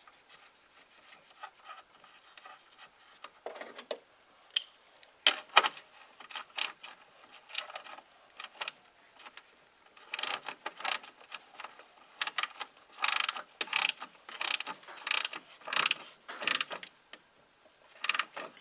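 Hand ratchet and socket clicking as it turns in the screw that holds the coolant overflow tank: scattered clicks at first, then quick repeated bursts of ratcheting in the second half.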